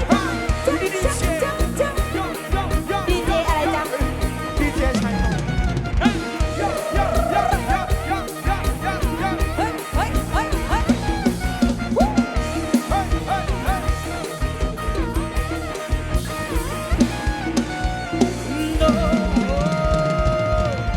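Live band music with a drum kit beat under a bending lead melody line, played loud through a sound-truck PA.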